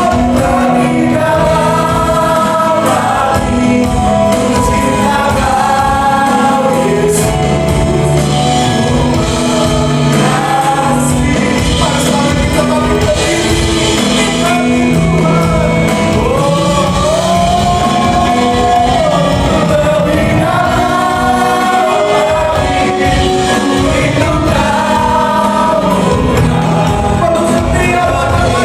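Worship music: voices singing a melody over steady band accompaniment with a regular beat.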